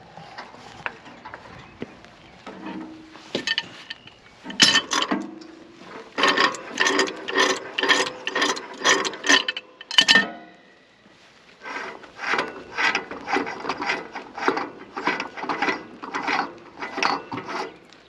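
Hand wrench ratcheting on a pipe fitting of a propane railcar's valve dome: rhythmic metallic clicks, about two a second. The clicks stop briefly about ten seconds in, then start again.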